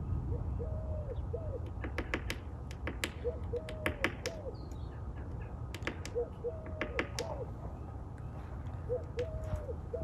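Red-breasted nuthatch pecking at a hole in plywood, giving sharp taps in short clusters. A dove coos through it, a short phrase of three or four low notes repeated about every three seconds.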